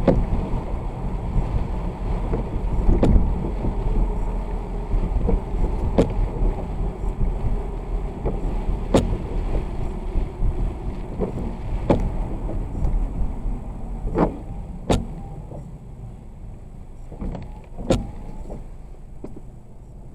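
Car driving in the rain: steady road and tyre rumble, with a sharp windshield-wiper knock about every three seconds. The rumble fades in the last few seconds.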